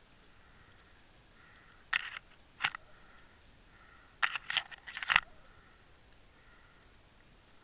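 A few sharp clicks and knocks underwater: single clicks about two seconds in and again just under a second later, then a quick cluster of four or five near the five-second mark, over a faint hiss.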